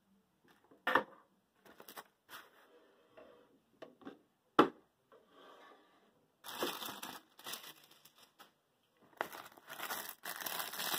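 Plastic cable wrapping crinkling and rustling in irregular spells as modular power-supply cables are handled and pulled from a fabric cable bag, with a sharp knock about a second in and a louder one about four and a half seconds in.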